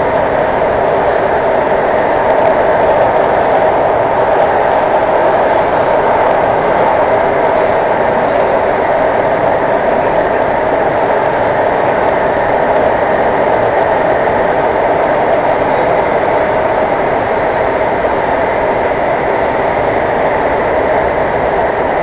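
Alstom AS-14 metro train running at speed through a tunnel, heard from inside the car: a loud, steady rolling rumble of wheels on rail, with no pauses.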